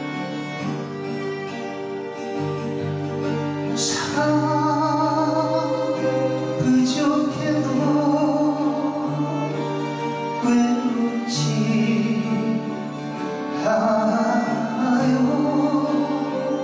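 Live worship band playing a slow gospel song on acoustic guitar, violin and keyboard, with singing entering about four seconds in and carrying the rest of the passage.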